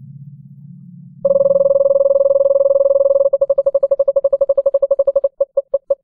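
A low electronic drone, then a loud synthesized tone that cuts in abruptly about a second in and holds steady for two seconds. It then stutters into rapid pulses, which slow to separate beeps about five a second near the end.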